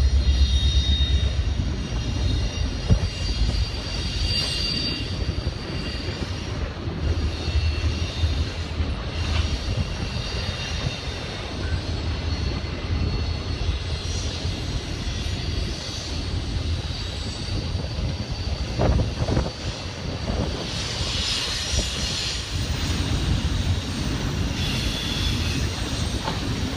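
Freight train rolling through a rail yard: a steady low rumble from Norfolk Southern diesel locomotives and their cars, with faint high-pitched squeals that come and go.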